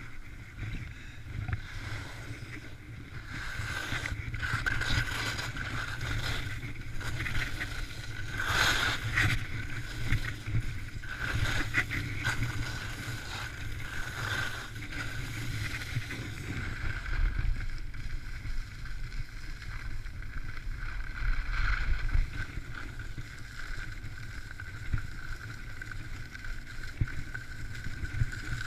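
Skis scraping and hissing over packed snow during a downhill run, swelling and easing with the turns, over a steady low rumble of wind buffeting the microphone.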